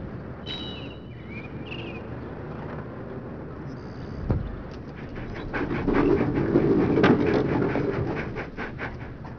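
A dog panting fast, about four breaths a second, loudest in the second half. Before it come a single sharp thump about four seconds in and a few short high chirps near the start.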